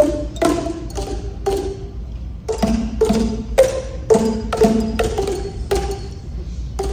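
Boomwhackers, colour-coded plastic tubes, struck by a group of children to play a simple tune: short hollow pitched notes one after another, with a brief pause about two seconds in.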